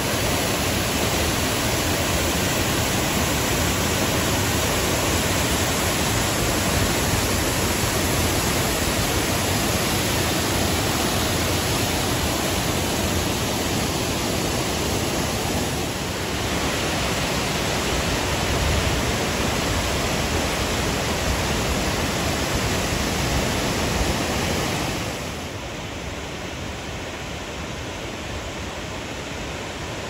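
Seasonal spillway waterfalls pouring and cascading over sandstone ledges: a steady rush of falling water, which turns quieter about 25 seconds in.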